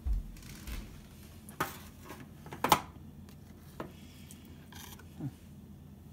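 Table knife scraping and clinking against a metal baking pan while cutting out pieces of cake: a few separate clicks and scrapes, the loudest a little before the middle, and a short scrape about five seconds in.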